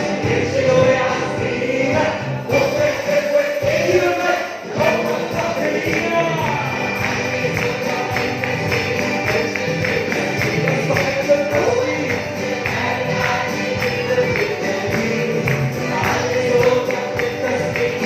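A group of voices singing a Christian praise song with a tambourine shaking and beating along.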